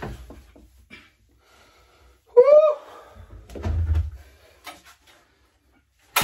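A man's short, breathless groan that rises and falls in pitch about two and a half seconds in, winded from pull-starting a cut-off saw that will not fire. A dull knock follows about a second later as the saw is handled.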